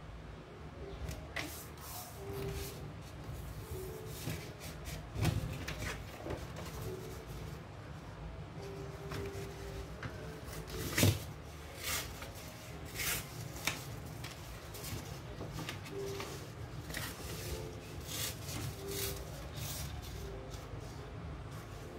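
Origami paper rustling and crinkling as hands fold, slide and smooth it on a wooden table, with scattered short crackles. One sharper knock comes about halfway through.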